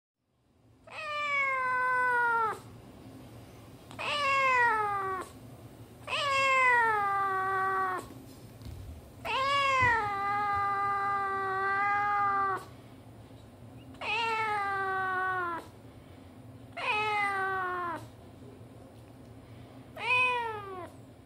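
Black domestic cat meowing repeatedly: seven long, drawn-out meows a second or two apart, each sliding down in pitch, the last one shorter.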